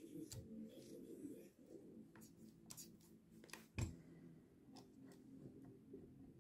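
Faint metallic clicks and taps of a tool working inside the rotary hammer's small piston to get the striker out, with one louder knock about four seconds in.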